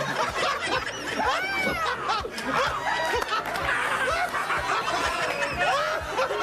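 Several people laughing at once, many voices overlapping in short rising and falling peals.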